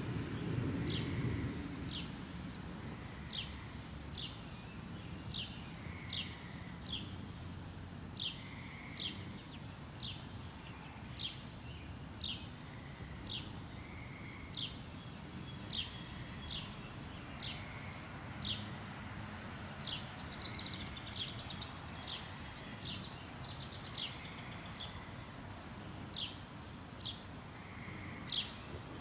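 A small bird chirping over and over, short high chirps roughly once a second, with softer calls from another bird now and then. Under them, the tail of a thunder rumble fades out in the first couple of seconds, leaving a low steady background rumble.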